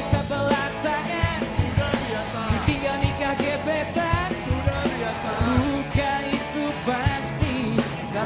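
Pop-rock band playing live, with a drum kit keeping a steady beat under acoustic and electric guitars and bass guitar, and a male lead singer.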